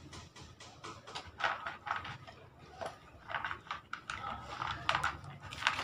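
Dog crunching dry kibble from a plastic bowl: irregular crisp chewing crunches, roughly two a second.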